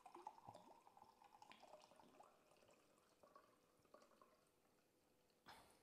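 Faint pouring of rum from a glass bottle into a glass measuring cup: a thin, irregular trickle with small glugs that tapers off about four seconds in. A brief soft noise follows near the end.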